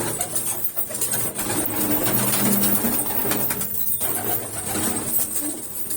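Domestic pigeons cooing, low overlapping coos.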